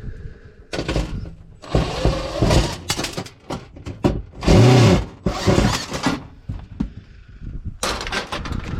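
Metal clattering and scraping in several bursts as the heating element of an electric range is worked loose and pulled off, with the loudest clatter near the middle.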